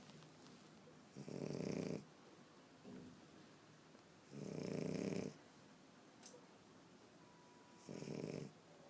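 French bulldog snoring in its sleep: three long snores about three seconds apart, with a faint short one between the first two. This is the noisy breathing typical of a flat-faced breed.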